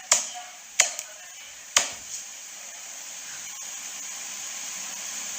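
Three sharp knocks, each fading quickly, in the first two seconds, followed by a steady hiss that slowly grows louder.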